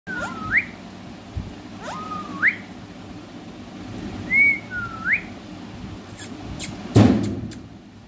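Indian ringneck parakeet whistling: four short whistles a second or two apart, most dipping and then sweeping sharply upward. Near the end come a few sharp clicks and one loud thump.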